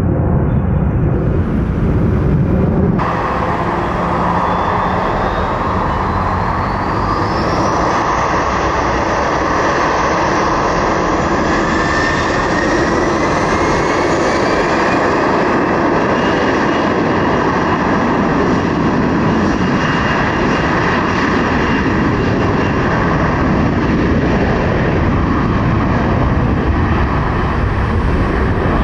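Jet aircraft engines running loud at high power, with whines that climb in pitch over several seconds as the engines spool up. The sound changes abruptly about three seconds in.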